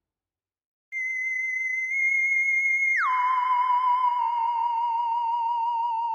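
Spooky wavering musical tone in the manner of a theremin, starting about a second in. It holds a high note for about two seconds, then slides down about an octave and holds the lower note.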